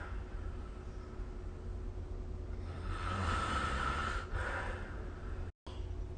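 A sleeping person snoring: one long, noisy snoring breath about three seconds in, over a steady low hum. The audio drops out for a moment near the end.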